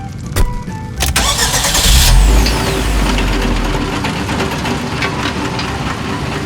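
Cartoon sound effect of an excavator's engine starting about a second in, with a loud low rumble that peaks soon after and then settles into steady running.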